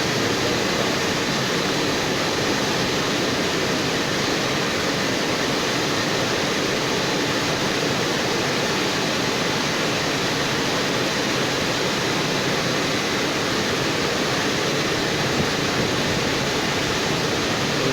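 Automatic car wash drying blowers running, a steady rushing noise.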